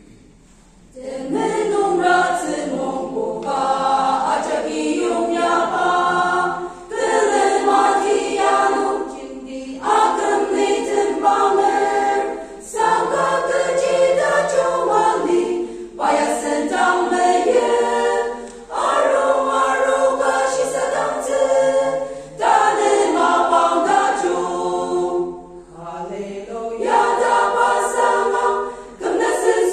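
Women's choir singing unaccompanied, in phrases of a few seconds broken by short pauses for breath; the singing starts about a second in.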